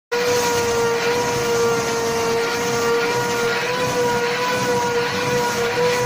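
Canister vacuum cleaner running steadily: a high motor whine over the rush of air through the hose, its nozzle being worked over a dog's coat.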